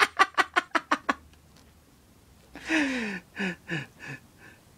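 A man laughing hard: a quick string of 'ha' bursts that stops about a second in, then after a pause a second laugh that falls in pitch and trails off into fainter, shorter breaths.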